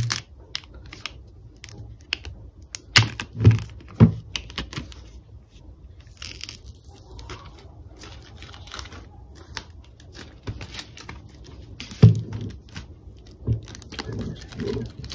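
Hands handling a white cardboard watch box: a paper security seal peeled off with light tearing and crinkling, plastic wrap rustling, and scattered taps and clicks. A few sharper knocks stand out about three to four seconds in and again near twelve seconds in.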